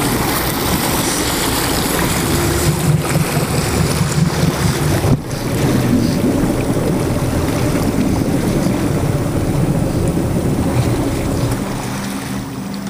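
Small boat under way: water rushing and splashing along the hull, with wind buffeting the microphone and a low steady hum beneath.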